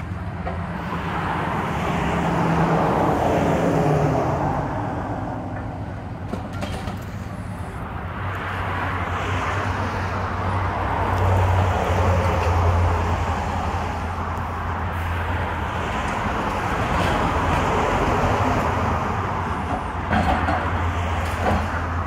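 Excavator's diesel engine running steadily while it demolishes a building, with waves of crunching, falling rubble that swell and fade every few seconds, and a couple of sharp knocks near the end.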